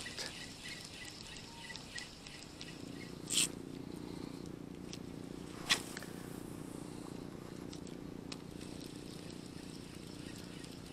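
A fishing cast and retrieve: a short swish about three seconds in and a sharp click a couple of seconds later, then the low steady whir of a spinning reel being cranked to bring the lure back.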